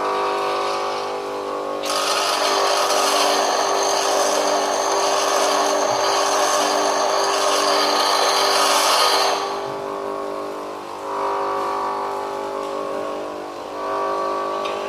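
Bench grinder motor running steadily. About two seconds in, an HSS lathe tool bit is pressed against the wheel and grinds harshly for about seven seconds, taking off the black scale. The bit is then lifted away while the wheel keeps spinning, with lighter grinding again near the end.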